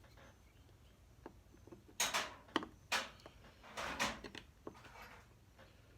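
Hand tools being handled and set down on a workbench: a series of sharp clatters and knocks, the loudest about two to four seconds in.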